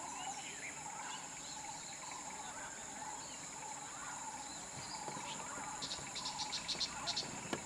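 Insects buzzing steadily in the roadside forest, with scattered bird calls; near the end a quick run of sharp chirps, about six a second.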